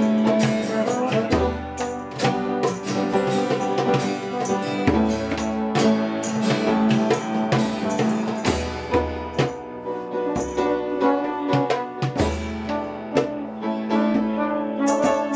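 A small band playing live, with a trombone over a steady percussion beat.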